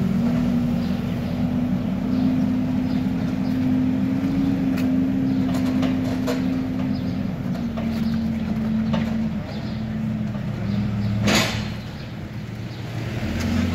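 Hidromek HMK 102S backhoe loader's diesel engine running steadily as the machine drives off, its pitch dipping slightly partway through. A single sharp knock sounds about eleven seconds in, and the engine is briefly fainter after it.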